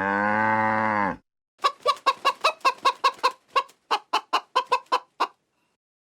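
A low, drawn-out animal call for about the first second, then a chicken clucking in a rapid run of about twenty short clucks, roughly five a second, that stops about five seconds in.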